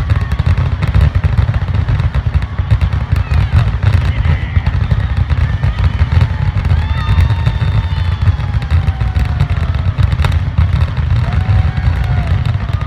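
Fireworks finale barrage: aerial shells bursting in a rapid, unbroken string of deep booms with sharp cracks and crackle layered over them.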